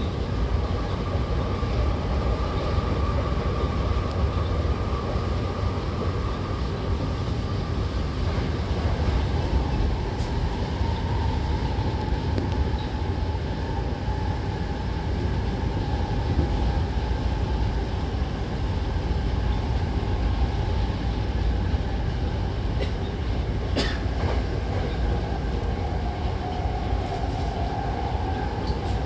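Hankyu train running between stations, heard from inside the car: a steady rumble of wheels on rail with a steady whine above it, and a few sharp clicks near the end.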